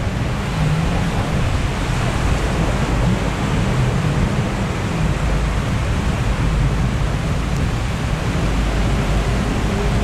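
Steady, low rushing of surf and wind, with no distinct events.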